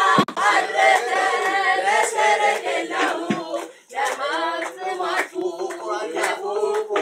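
Several voices singing together, with hand claps throughout.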